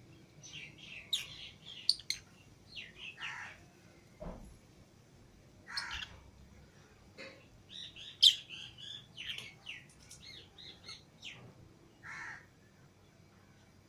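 Lovebirds (Fischer's and lutino) chattering: a busy run of short, high chirps mixed with harsher squawking calls. A sharp click about eight seconds in is the loudest sound, and a dull knock comes about four seconds in.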